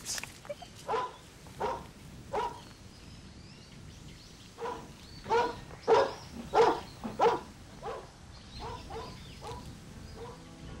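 A dog barking repeatedly: about a dozen short barks, a few early on, then a run of louder ones in the middle that tails off toward the end.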